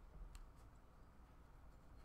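Near silence with a low hum, broken by one faint click about a third of a second in as a freshly opened stack of baseball cards is handled.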